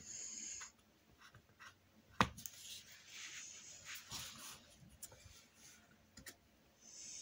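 Paintbrush stroking acrylic paint onto the picture: soft scratchy brushing in several separate swipes, with a few sharp light clicks in between.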